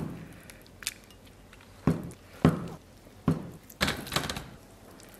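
Cleaver chopping tofu on a wooden chopping block: about half a dozen separate knocks of the blade on the wood. Near the end the cut cubes are slid off the cleaver onto a stainless steel plate.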